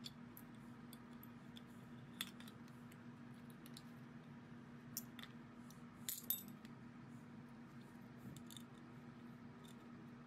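Faint metallic clicks and taps as the metal housing halves and small parts of a vintage Craftsman electric drill are handled and fitted together. The clicks are scattered, with the loudest cluster about six seconds in, over a faint steady hum.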